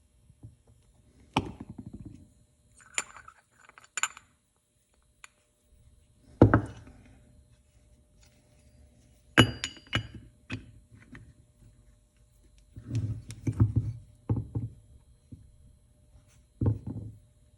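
Scattered metallic knocks and clinks of a connecting rod and piston being handled and fitted together on a workbench, with a short run of rattling knocks near the end.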